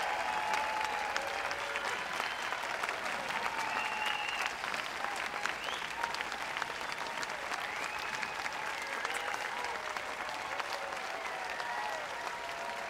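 Large audience applauding: dense, steady clapping with scattered cheers and calls rising over it, easing slightly toward the end.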